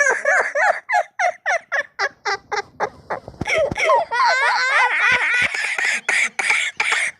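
Boys laughing in quick, high-pitched ha-ha pulses, about four or five a second, turning denser with several voices overlapping from about four seconds in.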